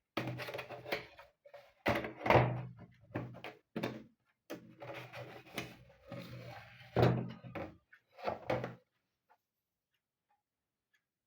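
A small plastic quartz wall clock being handled and turned over: a busy run of knocks, scrapes and rattles that stops about nine seconds in.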